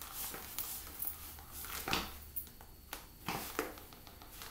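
Black leather ballet flats stepping and shifting on a tile floor: a few soft, irregular taps and scuffs.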